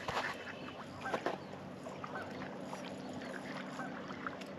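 Water splashing in short bursts as a hooked fish thrashes at the surface while being reeled toward the bank, with geese honking in the distance.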